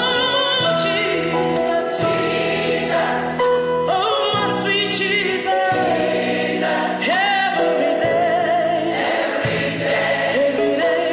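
A large gospel choir singing, many voices holding chords in harmony that change every second or two.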